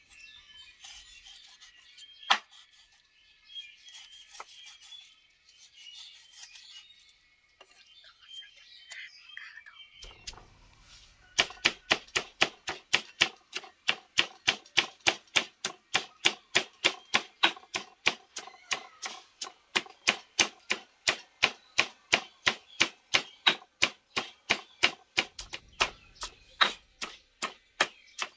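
Stone pestle pounding a herb paste in a stone mortar: a steady run of sharp knocks, about three a second, starting about eleven seconds in. Before that, a single cleaver knock on a wooden chopping board about two seconds in, over faint high chirping.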